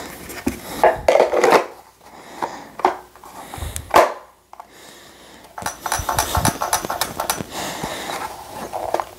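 A pistol with a mounted weapon light being pushed into and worked in a Kydex holster: hard plastic scraping and rubbing, a sharp click about four seconds in, then a run of rapid small clicks and scrapes near the end. The holster is a snug, tight fit for the light.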